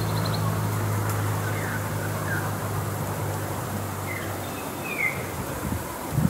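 A few short, falling bird chirps over a steady low hum and outdoor background hiss, with a low thump near the end.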